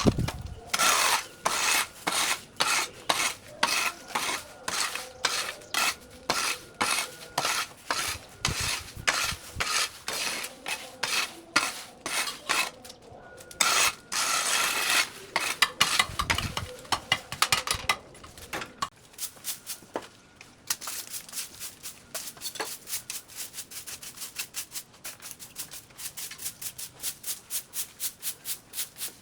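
Rhythmic scraping strokes, about two a second, from hand work in yard cleanup. In the last third the strokes turn quieter and quicker.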